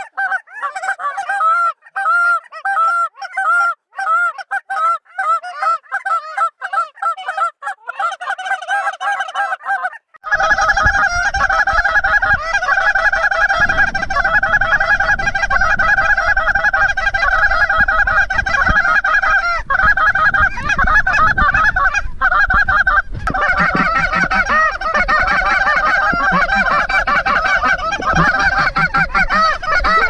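A flock of geese honking continuously, many calls overlapping. About ten seconds in, the calls grow denser and a low wind rumble on the microphone joins beneath them.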